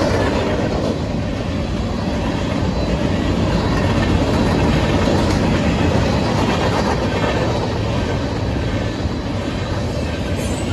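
Cars of a mixed freight train rolling quickly past, their steel wheels running on the rails in a loud, steady rush.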